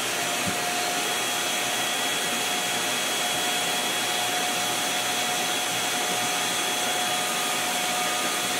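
FoxAlien HFS-800 compact vacuum dust collector running steadily at about half power, its hose nozzle sucking up sawdust. A steady motor whine sits over the rush of air.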